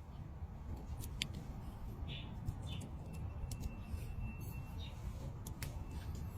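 Scattered small clicks and brief scrapes of thin wire being handled and two wire ends twisted together, over a low steady rumble.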